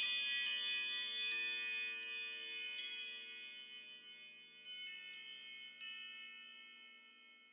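An Apple ringtone of high, bell-like chime notes struck in a loose cascade, thinning to a few last strikes and ringing away to silence near the end.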